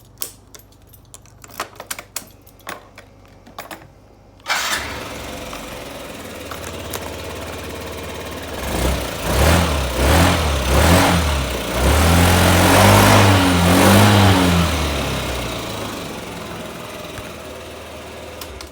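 A few light clicks, then a Yamaha Gear scooter's engine starts abruptly and idles. It is blipped several times, held at higher revs for a couple of seconds, then settles back down toward idle.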